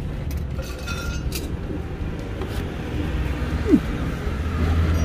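A few light metallic clinks and one short falling squeak from hands working on a car's oil filter, over a steady low rumble.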